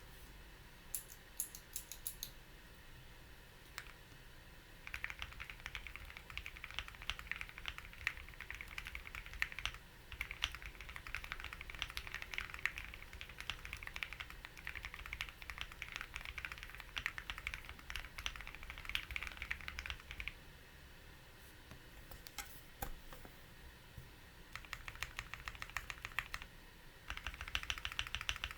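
Typing on a Wuque Ginkgo65 65% mechanical keyboard with lubed and filmed JWK OA linear switches, a polycarbonate plate and full foam dampening. There are a few scattered keystrokes at first, then long runs of fast, even keystroke clacking, a lull with only a few presses about two-thirds of the way through, and more fast typing near the end.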